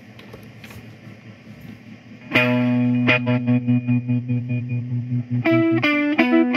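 Fender Jazzmaster electric guitar through a Fender Vibrolux amp and a chain of effects pedals (Red Panda Particle and Tensor, EAE Halberd, Fairfield Circuitry Shallow Water). After about two seconds of faint amp hiss and hum, a distorted chord hits and rings. It then breaks into a rapid, choppy stutter of repeats, with the pitch stepping up and down near the end.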